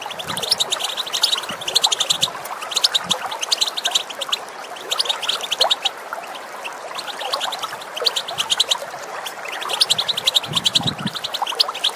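European goldfinch giving its rapid twittering call: quick runs of high, clipped notes, repeated several times with short breaks. Running water rushes steadily underneath.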